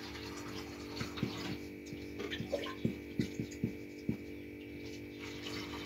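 Marker pen writing on a whiteboard: a string of short taps and scratchy strokes as an equation is written, over a steady electrical hum.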